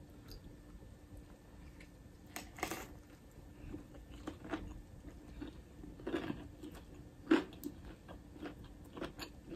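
Eating a KFC fried chicken sandwich: a bite and then chewing, with scattered soft crunches and mouth sounds. The loudest crunch comes about seven seconds in.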